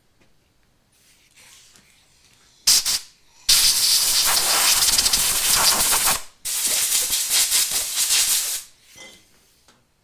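Compressed-air blow gun blowing out freshly tapped threads: a short blast about two and a half seconds in, then two long hissing blasts of two to three seconds each.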